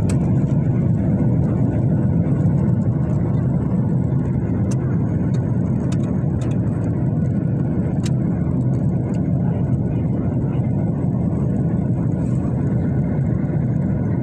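Aircraft on a landing approach, its engine and airflow noise a steady low rumble, with a few faint clicks.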